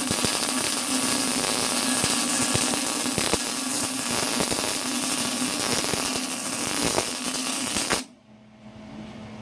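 MIG welding arc crackling steadily as a bead is run, then cutting off sharply about eight seconds in as the trigger is released.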